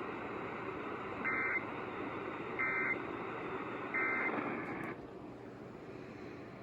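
EAS/SAME end-of-message data tones: three short warbling digital bursts about 1.3 s apart over a steady radio hiss, marking the end of the weather alert. The hiss drops off about five seconds in.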